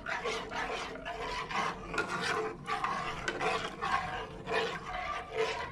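A metal spoon scrapes around the bottom of a granite-coated nonstick pan as it stirs a thickening mixture of milk powder, starch and water, in a steady rasping rhythm of about two strokes a second.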